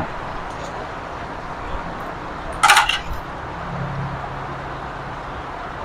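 A brief metallic clatter of kitchen utensils, sharp clinks with a short ring, about two and a half seconds in, after a single knock at the very start, over steady outdoor background noise.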